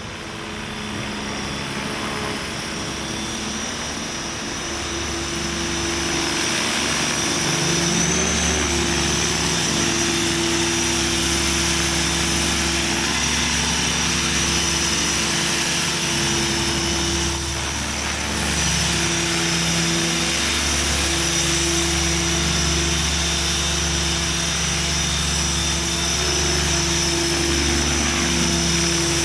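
Align T-Rex 500 electric RC helicopter flying and hovering: a steady rotor buzz with a high motor whine over it. It grows louder over the first several seconds as it comes down and close, then holds steady.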